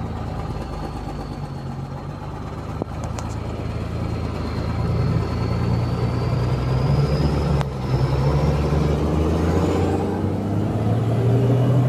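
Milk tanker truck's engine running steadily, heard from inside the cab, growing louder from about four seconds in as it pulls harder. A faint high whine rises slowly in pitch above the engine.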